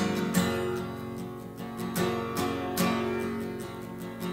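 Solo acoustic guitar strumming an instrumental break in a folk song, with several distinct strums over ringing chords.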